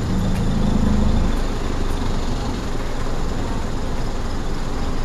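Cabin noise inside a passenger van: steady engine drone and road rumble, with a low hum that swells for about the first second and a half and then settles back.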